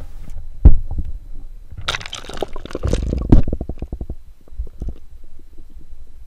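Waterproof action camera going down through a hole in the ice into the lake: a loud knock against the housing under a second in, then splashing and a quick run of muffled knocks and bubbling as it goes under water.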